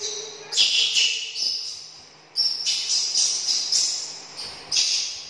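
Baby macaque crying out in a string of short, high-pitched screeches, about two a second with a brief pause about two seconds in: an upset young monkey calling at a shut door.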